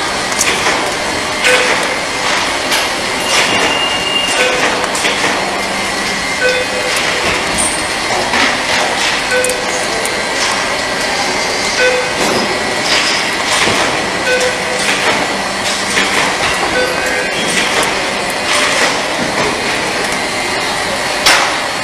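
Automatic pin-soldering machine running in a workshop: a steady mechanical clatter with scattered clicks and a short beep-like tone repeating about once a second as it cycles.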